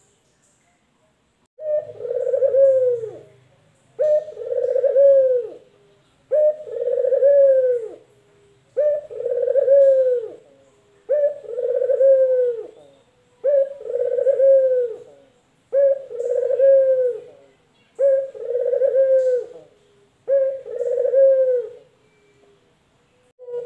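Male ringneck dove (local puter) cooing over and over: nine long coos at an even pace, about one every two seconds, each ending on a falling note.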